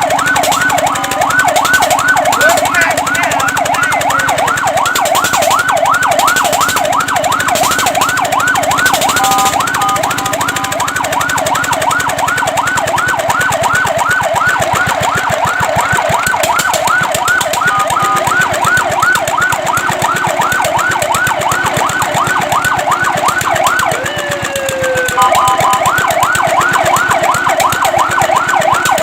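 Fire truck siren sounding a fast yelp, its pitch sweeping up and down several times a second. About ten seconds in, and again later, it briefly switches to steady two-note tones. Near the end a tone glides down and the loudness dips before the yelp resumes.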